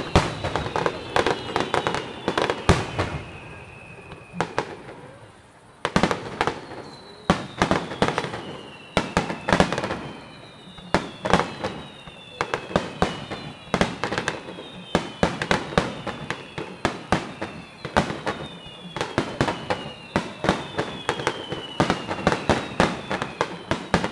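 Aerial fireworks shells bursting in quick succession, a dense run of sharp bangs, with several overlapping whistles falling in pitch over a couple of seconds each. The bangs thin out for a moment about four seconds in, then resume with a loud report about six seconds in.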